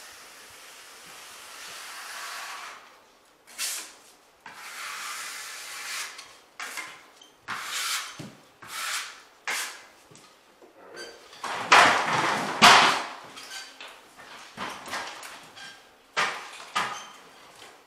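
Steel drywall taping knife scraping joint compound along a taped drywall seam in a run of separate strokes, loudest about twelve seconds in.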